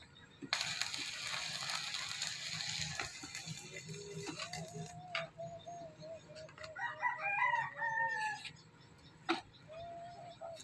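A rooster crowing: one drawn-out crow that rises and falls about seven seconds in. Before it there are a few seconds of steady hissing noise, and a few sharp clicks.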